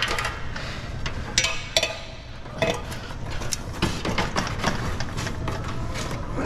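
Irregular knocks and clanks of a metal sign frame and ladder being handled during the installation of a large sign, over a steady low hum.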